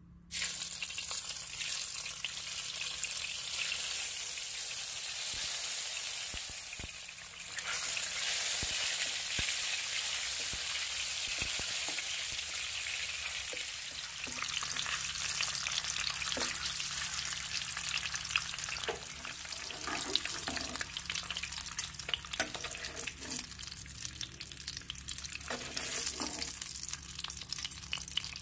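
Boiled eggs dropped into hot oil in a frying pan, setting off a sudden loud sizzle that carries on, with a short dip about seven seconds in. Scattered knocks and clicks against the pan come through the sizzle in the second half.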